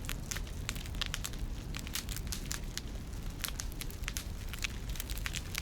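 Wood fire crackling with many irregular sharp pops, over a steady low rumble of wind.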